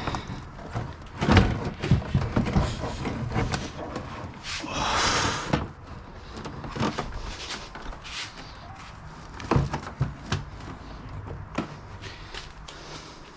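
Carpeted front-trunk liner of a McLaren 570 being pulled free by hand: a run of sharp knocks and clicks, with about a second of scraping rustle near the middle.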